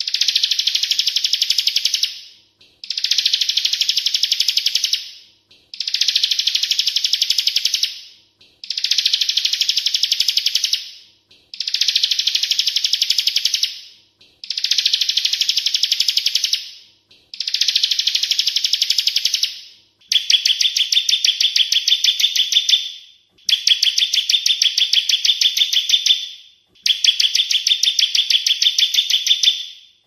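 Ciblek kristal (bar-winged prinia) singing: a rapid, high trill delivered in repeated phrases of about two and a half seconds with short pauses between them. About two-thirds of the way through, the phrases shift to a lower, narrower pitch.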